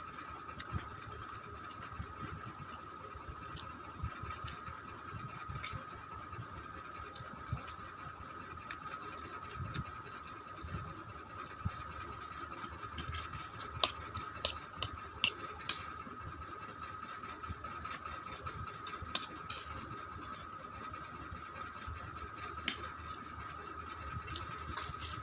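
A person eating Maggi instant noodles close to the microphone: scattered short mouth clicks and smacks, several in quick succession about halfway through, over a steady high hum and low rumble.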